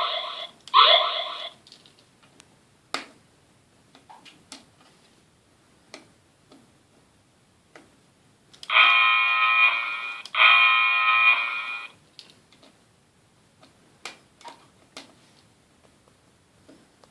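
RC model horn sound unit sounding horn effects: two short blasts that rise in pitch at the start, then, after several seconds of scattered faint clicks, two steady horn blasts of about a second and a half each.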